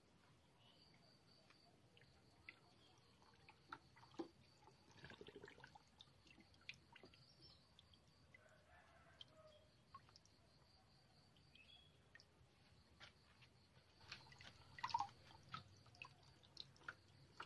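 Faint sound of water running from a garden hose into a plastic basin, with scattered drips, splashes and handling clicks, and a short cluster of louder splashes and knocks near the end. A faint high-pitched pulsing trill runs underneath.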